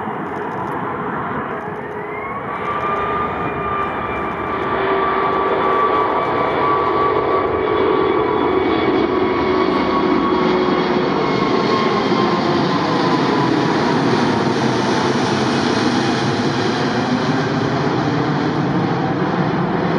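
Airbus A380-842 airliner's four Rolls-Royce Trent 900 jet engines as it flies low toward the listener and passes overhead: a jet roar that swells over the first few seconds and then stays loud. A whine rises in pitch about two seconds in and slowly falls as the aircraft goes past.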